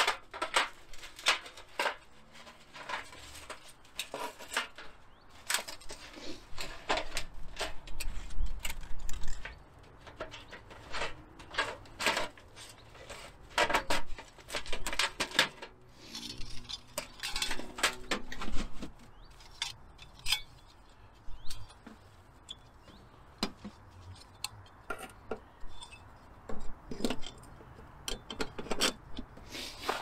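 Irregular metallic clinks and knocks of camping gear being handled.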